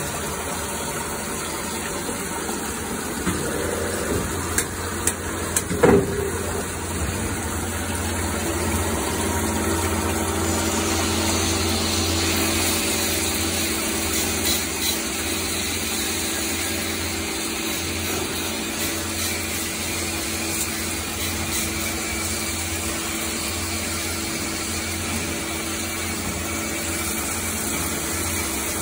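CNC lathe turning a metal workpiece under a coolant jet: steady machining noise of the spindle and cutting tool, with a few sharp clicks about four to six seconds in. From about ten seconds on, a steady hum and a stronger hiss run along with it.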